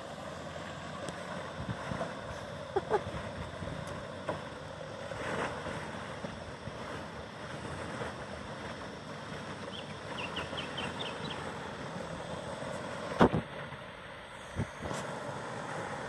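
A 4WD wading slowly through a shallow river: a steady low run of engine and water wash, with some wind on the microphone. A quick run of about six high chirps comes about ten seconds in, and a single sharp knock, the loudest sound, about three seconds later.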